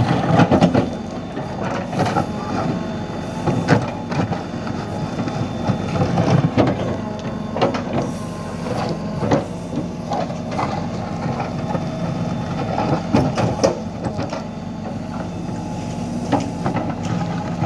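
Bobcat B900 backhoe loader's 76 hp diesel engine running steadily, with irregular metallic clanks and knocks from the machine working.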